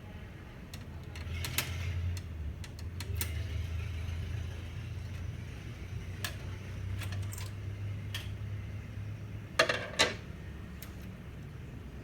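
Scattered clicks and light knocks from hands handling a laser printer's parts while removing its formatter board, over a low steady hum. Two louder clattering knocks come close together near the end.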